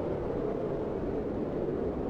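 Strong, steady storm wind rushing without breaks or gusts, a dense noise centred low in pitch.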